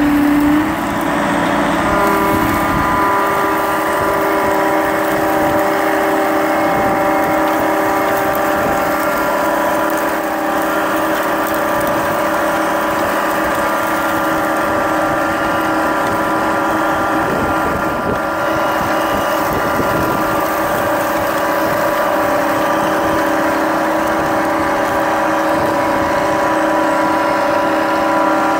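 Marsh Master amphibious tracked vehicle running steadily under load as it pulls a disc harrow, a constant engine drone with several held whining tones over a rough low rumble.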